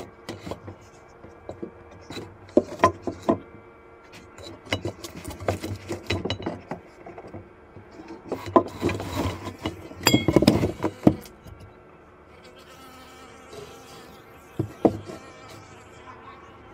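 Honeybees buzzing close to the microphone, a colony still alive after winter: a low steady hum with louder buzzing passes, the loudest about nine to eleven seconds in, and scattered sharp taps.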